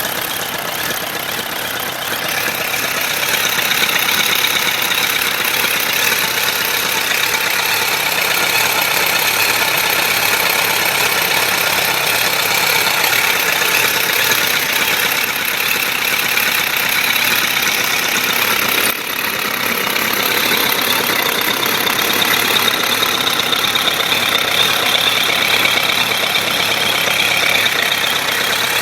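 Suzuki GSF1200S Bandit's inline-four engine running steadily with a knock, the fault the recording is meant to show. The level dips briefly about two-thirds of the way through.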